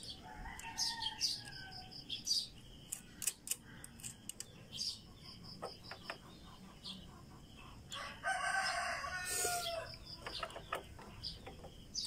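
A rooster crows: a fainter call near the start, then one long, loud crow about eight seconds in that falls in pitch at its end. Light clicks of small metal parts, a washer and nut being handled on the shifter linkage rod, come and go.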